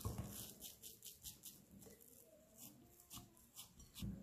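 Oiled hands stretching and folding sticky, low-gluten durum wheat dough in a glass bowl: faint, irregular wet smacks and squelches, with a duller thump about four seconds in.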